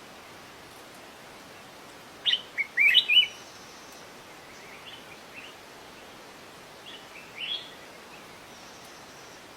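A bird chirping: a quick run of short, loud chirps about two seconds in, then a few fainter calls later, over a steady background hiss.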